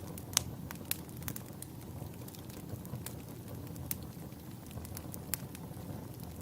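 Log fire burning in a fireplace: scattered sharp crackles and pops over a steady low rumble of flames, the loudest pop about half a second in.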